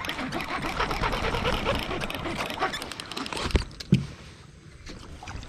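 Baitcasting reel cranked fast, a rapid, even mechanical clatter as a hooked fish is reeled in. About three and a half seconds in it stops with two sharp knocks, and after that it is quieter.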